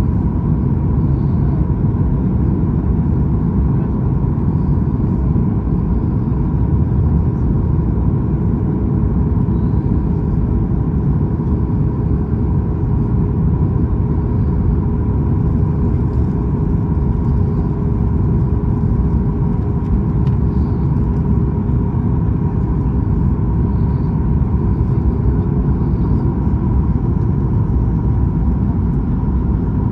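Steady cabin noise inside a Boeing 737 MAX 8 airliner: a deep, even rumble with a faint steady hum above it, unchanging throughout.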